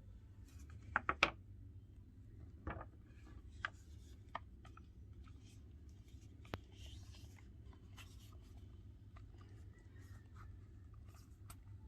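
Small handling sounds from a phone and its silicone case: a few sharp clicks and taps, the loudest cluster about a second in, then scattered single taps and a brief rustle, over a steady low hum.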